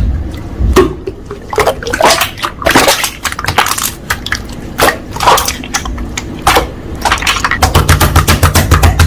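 Slime being squished and pressed by hand, making repeated wet clicks and pops, with a fast run of rapid clicks near the end.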